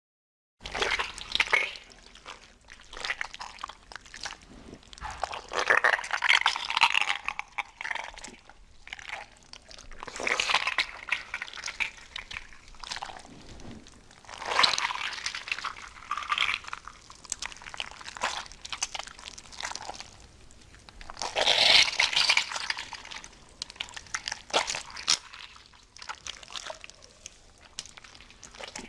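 Irregular crunching and crackling made of many small clicks, swelling into louder bursts every few seconds.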